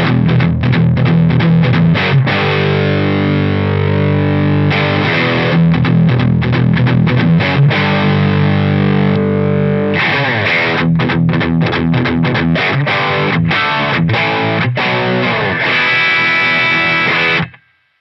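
Crews LED-1959 humbucker electric guitar played through a Fish Circuits Model One overdrive pedal into a Fender Deluxe Reverb and a 1x12 cabinet: overdriven chords and riffs, with the pedal's Body switch on its smallest setting, which cuts the low end hard. The playing stops abruptly near the end.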